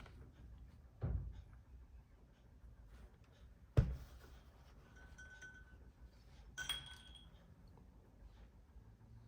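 Small hard parts being handled: a dull knock, then a sharp click, then two light ringing clinks of small metal pieces.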